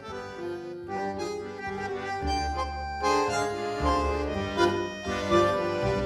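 Instrumental closing theme music with held melody notes; a bass line comes in about two seconds in.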